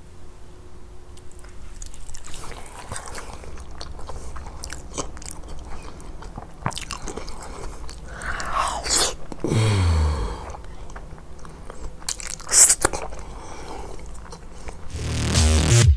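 Close-miked eating: a person biting and chewing food, with scattered sharp clicks of the mouth and a louder bite about twelve and a half seconds in.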